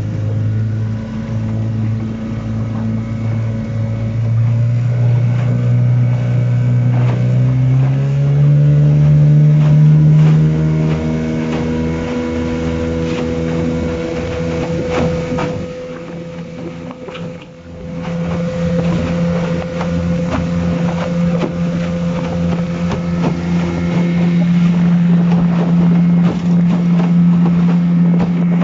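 A boat's motor running under way. Its pitch climbs in steps during the first several seconds as it speeds up, then holds steady, dipping briefly about two-thirds of the way through.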